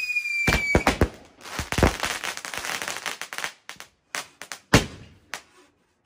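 Garden fireworks going off. A high whistle, falling slightly in pitch, fades out about a second in amid sharp bangs. Then comes a dense spell of crackling stars, then scattered single bangs.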